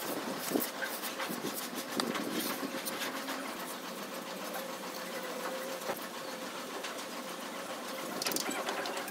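Hand trowel scraping and smoothing wet cement mortar on a concrete column's moulding, with scattered light taps of the tools against the concrete. A faint steady hum runs underneath from about a third of the way in.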